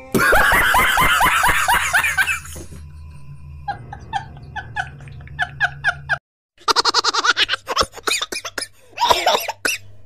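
A man laughing hard in a fast run of loud bursts, then more chains of short laughs, from a reaction-meme clip laid over the video.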